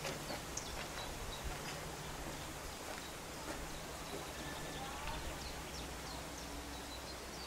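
Faint outdoor ambience: a steady low hum under light background noise, with scattered short, high chirps of distant birds.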